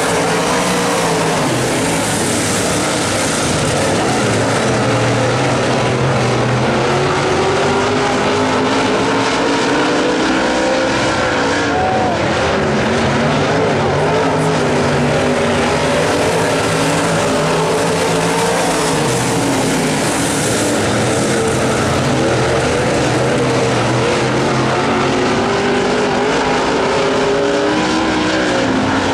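Several dirt-track modified race cars' V8 engines running hard around the oval. Their engine notes rise and fall in overlapping swells as the cars lift off and accelerate.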